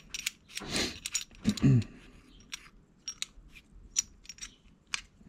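Ball screw actuator tube of a Bobcat control-valve actuator being unscrewed by hand from the motor body: scraping at the threads, then a scatter of small clicks and ticks from the plastic and metal parts being turned and handled.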